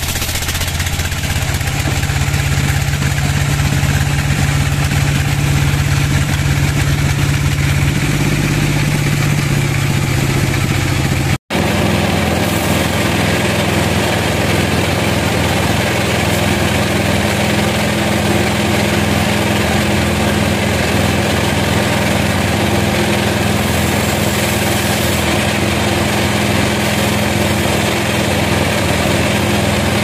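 Large vertical band sawmill running steadily, its drive giving a loud, even machine hum. The sound drops out for an instant about eleven seconds in, and the hum then continues at a higher pitch.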